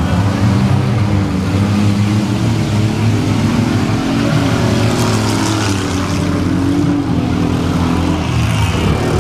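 Several demolition-derby minivan engines running and revving together, their pitch rising and falling.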